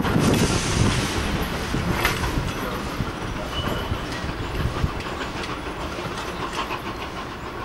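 Steam-hauled passenger train behind steam locomotive 464.202 pulling away, the coach wheels clacking over rail joints and points as the sound slowly fades.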